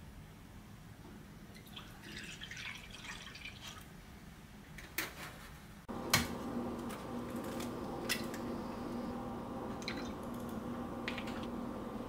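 Milk being poured from a plastic jug into a wooden bowl, a soft trickle. About six seconds in, a steady hum starts, with a few sharp taps as an egg is cracked on the wooden bowl.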